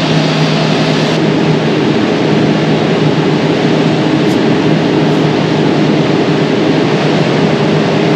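Brazing torch flame hissing steadily while it heats a coupled copper refrigerant line joint, over a steady low machine hum.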